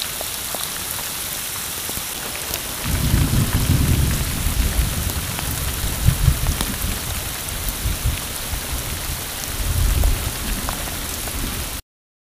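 Heavy rain pelting the lake and the boat, a steady hiss with fine ticks of drops. About three seconds in, a loud low rumble rises underneath and runs on for most of the rest. The sound cuts off suddenly just before the end.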